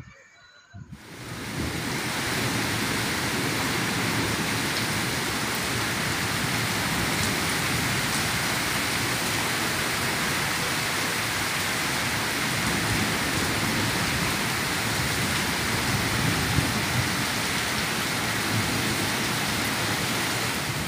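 Very heavy rain pouring down steadily, a dense, even hiss. It cuts in abruptly about a second in.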